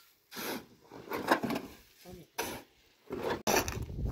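A shovel scraping and scooping loose grey gravelly powder out of a pickup truck's bed, a series of rough scrapes about one a second.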